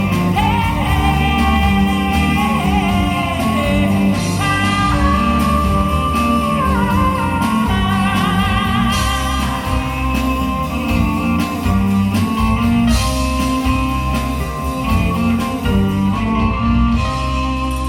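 Live folk-rock band music: guitar, bass and drums with a melodic lead line, played loud in a hall; the music softens slightly near the end.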